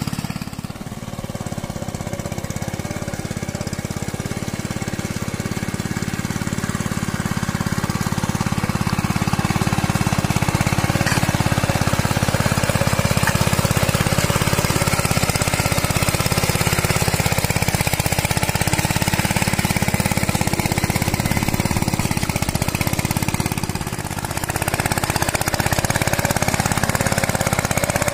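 Two-wheel hand tractor's single-cylinder diesel engine chugging steadily with a fast, even beat as it pulls a moldboard plow through weedy ground. The sound dips briefly about a second in and again near the end, but the engine keeps running.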